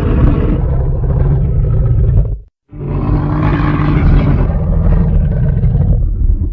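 Monster roar sound effects for a wendigo: a long, loud growling roar that breaks off about two and a half seconds in, then, after a short silence, a second roar that cuts off at the end.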